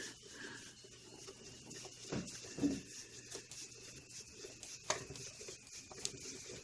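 Faint rubbing and a few light clicks as a Phillips screwdriver and hands work at the screws of a Rancilio Rocky grinder's top cover.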